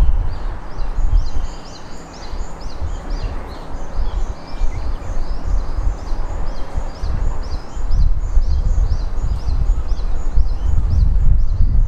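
A bird calling in a quick, even series of short high chirps, about three a second, that stops about nine seconds in, over a loud, uneven low rumble.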